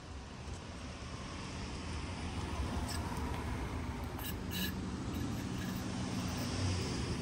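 Pickup truck driving slowly along a dirt track in the woods, its engine and tyre rumble growing steadily louder as it comes past. A few light clicks near the middle.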